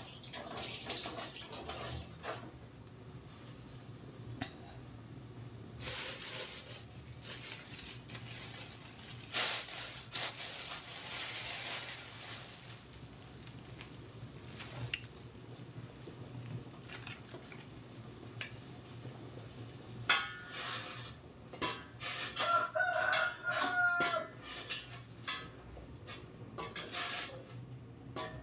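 A rooster crowing a few times, the clearest a long held crow about three-quarters of the way through that drops at its end.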